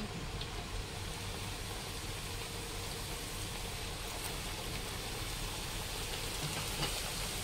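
Puris deep-frying in hot oil, a steady sizzle.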